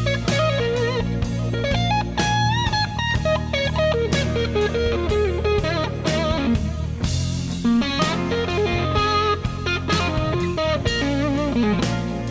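Blues lead played on a Fender Telecaster electric guitar through a tube amp: single-note lines with string bends and vibrato, over a backing with a steady low bass and a regular drum beat.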